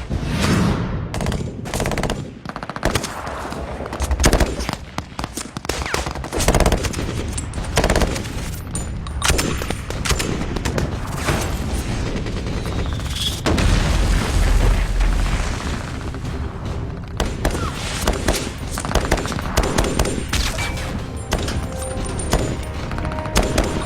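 Film gunfight sound: sustained, dense automatic-weapon and machine-gun fire, many overlapping shots in rapid runs, with a deep low rumble about fourteen seconds in.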